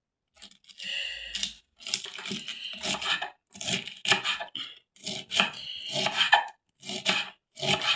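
A blunt kitchen knife chopping cabbage on a cutting board: a run of uneven cutting strokes with short pauses.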